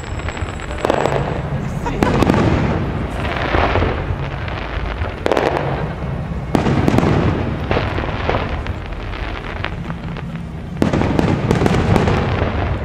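Aerial firework shells exploding one after another, a sharp bang every second or two, each trailing off in a long echo.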